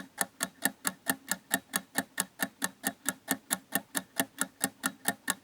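Ticking time-bomb sound effect: a fast, even clockwork ticking, about four to five sharp ticks a second, steady throughout.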